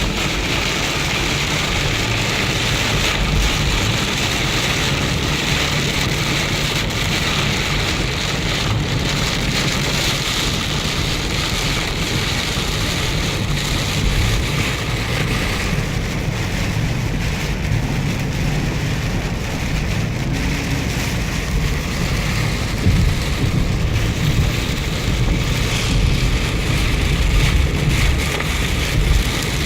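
Heavy rain beating on a moving car, with tyres running through standing water and a low road rumble, heard from inside the cabin. The rain lightens a little about halfway through.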